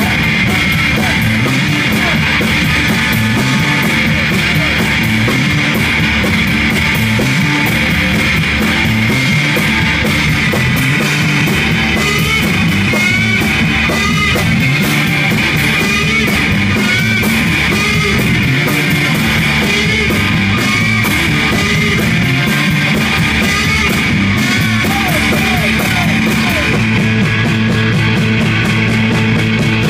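Rock band playing loud: electric guitar, bass guitar and drum kit with a steady beat.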